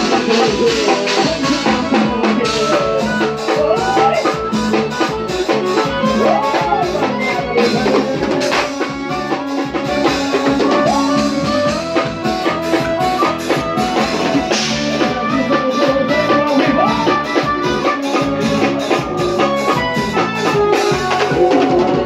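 Live forró band playing: piano accordion over a drum kit keeping a steady beat, with a melody line that swoops up and down every couple of seconds.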